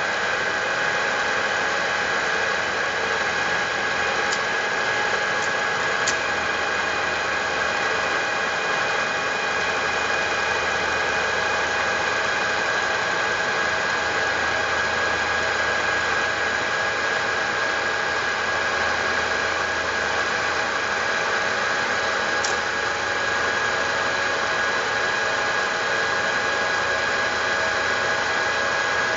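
Milling machine running steadily with a constant high whine, a few faint clicks about 4, 6 and 22 seconds in.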